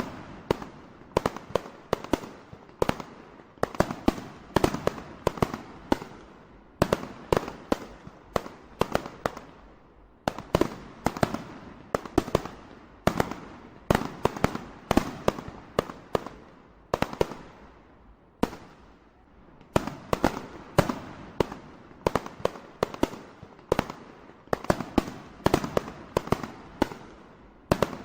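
A long run of sharp cracks and pops in irregular, rapid clusters, several a second, with brief gaps between the clusters.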